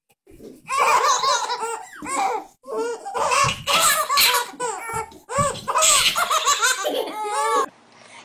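Baby laughing in repeated high-pitched bursts, stopping shortly before the end.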